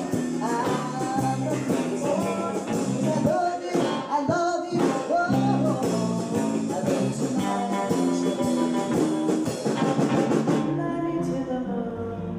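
Band music in a blues-rock style: a wordless passage led by guitar with bass and drums. Near the end the cymbals drop out and the music eases into a softer, gentler piece.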